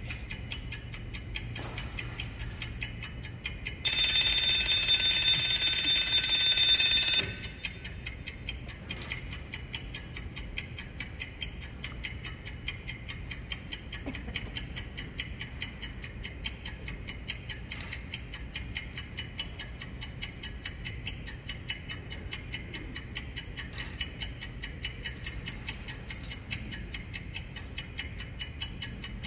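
Alarm clock ticking steadily, its bell ringing loudly for about three seconds around four seconds in. A few louder clicks stand out over the ticking.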